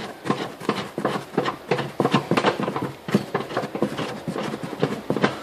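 A quick, uneven series of clicks and knocks as a Volkswagen Gol G5 tail light's retaining nuts are turned by hand to fasten the light.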